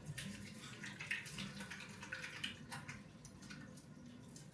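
Water running from a tap with hands being washed under the stream, a soft, uneven splashing.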